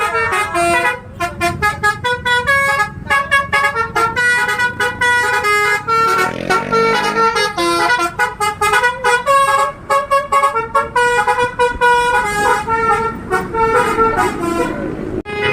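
Indonesian tour bus's 'telolet basuri' musical air horn playing a fast melody of short notes that step up and down in pitch, over a low rumble.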